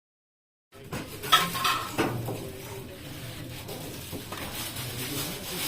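After a brief dead silence, a run of sharp clinks and clatters of hard objects, the loudest about a second and a half in, followed by lighter knocking and rattling.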